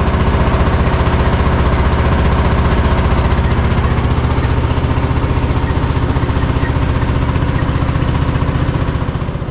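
Small boat's engine running at a steady speed with a rapid, even chugging, then winding down near the end.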